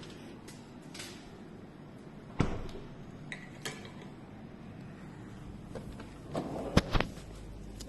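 Scattered sharp knocks and clinks of hard objects being handled: one about two and a half seconds in, two light ticks soon after, and a loud double knock near the end.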